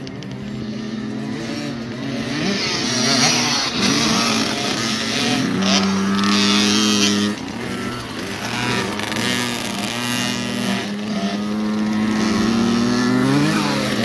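Several kids' 50cc dirt bike engines racing, revving up and down so their pitch keeps rising and falling, loudest about three to seven seconds in as bikes pass close.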